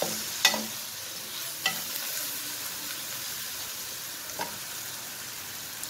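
Onion and tomato masala frying in oil in a steel karahi, sizzling steadily, while a metal spoon stirs it and clicks against the pan about four times, three of them in the first two seconds.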